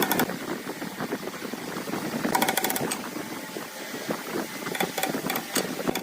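Small power tool running with a rapid mechanical rattling, with louder bursts of clicking about two and a half seconds in and again near five seconds.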